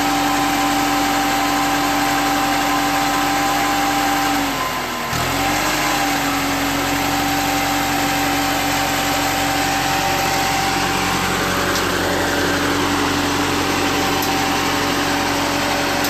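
Engine of a tracked boom lift running steadily with a droning hum. Its pitch sags briefly about five seconds in, then recovers and holds steady.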